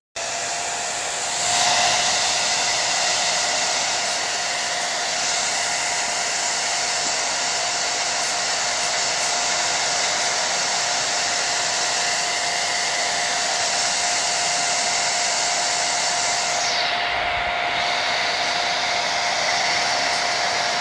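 Hand-held blow dryer running steadily at close range: a rush of air with a steady whine in it, used to set the gel laid along the hairline under a wig cap and wrap.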